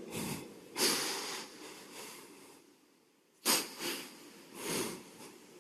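A man's breath close to the microphone: several short, sharp intakes and exhalations through the nose, with near silence between them.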